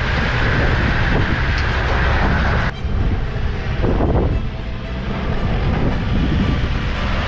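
Toyota Land Cruiser and Toyota Hiace 1KD diesel van driving past over a rough dirt track, engine and tyre rumble heavy and continuous. The sound breaks off abruptly about three seconds in, and the van's noise swells as it comes closer.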